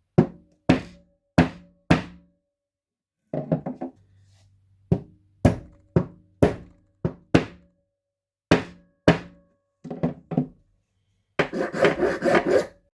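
Hammer blows, mostly single strikes about half a second apart, each followed by a short metallic ring. The blows end in a quick flurry of rapid strikes.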